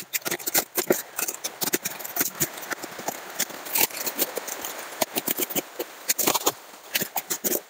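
Cardboard, packing tape and plastic wrap being cut with a knife and ripped off a new motorcycle tire: a dense, irregular run of crackling, ripping and rustling.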